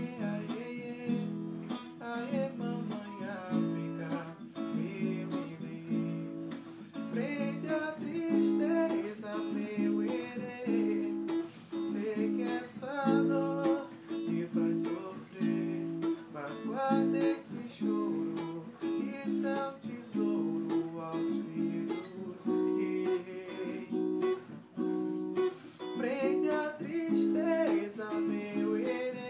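Waldman acoustic guitar strummed in a steady rhythm, with a man singing along.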